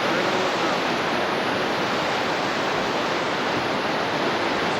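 Flooded river water rushing over and around a dam, a steady loud rush with no break.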